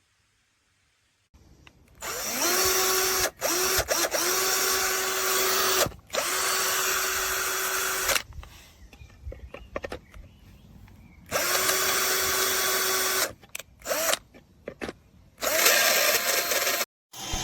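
Cordless hammer drill (MHPRO 21V) running in several bursts of one to a few seconds, each one spinning up with a rising whine and then holding a steady pitch. There is a quieter pause of about three seconds in the middle, and a few short blips near the end.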